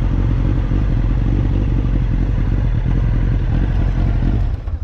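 Sport motorcycle engine running steadily under way, a loud, even low rumble that eases off a little before the end.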